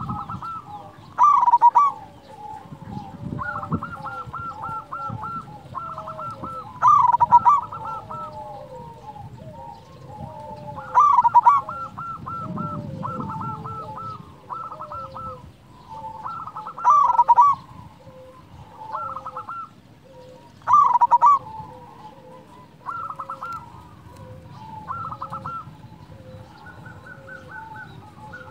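Zebra dove (perkutut) singing its staccato cooing song: five loud phrases, spaced about four to six seconds apart, with quieter rapid trilled notes between them.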